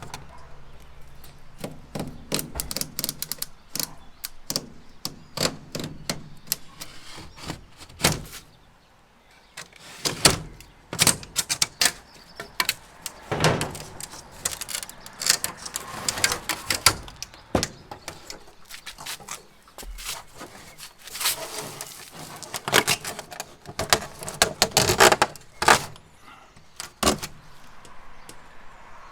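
Irregular knocks, taps and clatter of hard objects being handled and struck, coming in busy clusters with a short lull about nine seconds in.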